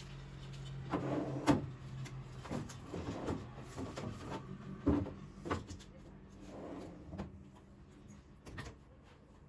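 Containers and fridge drawers being handled and set down while a refrigerator is organised: a string of irregular knocks and clatters. A low steady hum runs through the first couple of seconds.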